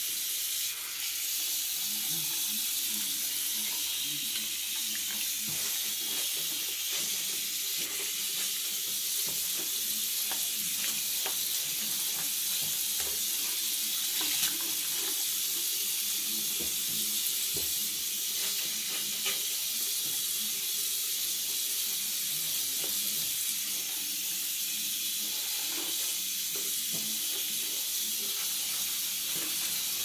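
Faucet running steadily into a bathroom sink while a sponge scrubs the basin, with a few light scrapes and knocks among the water noise.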